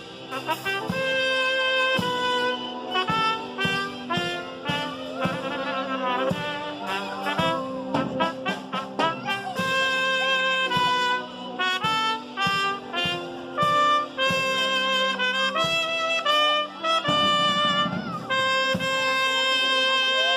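Trumpets playing a ceremonial fanfare-style piece: held, bright notes with quick runs of notes partway through.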